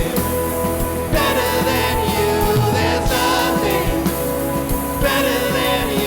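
Live worship band playing a Christian song, with a singing voice over sustained instruments and regular drum hits.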